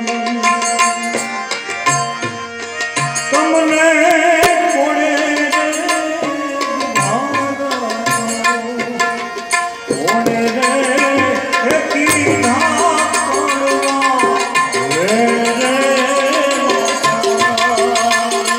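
Indian music: tabla drumming under a sustained melody line, with the low drum's strokes falling in and out every second or so.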